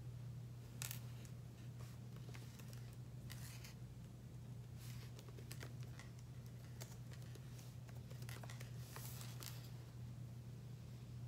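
Small clicks and short scratchy rustles of objects being handled, scattered irregularly over a steady low electrical hum.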